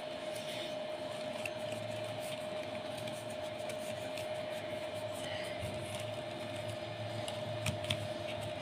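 Faint rustling and light taps of cut paper leaves being handled and pressed flat, with a few short clicks near the end, over a steady hum.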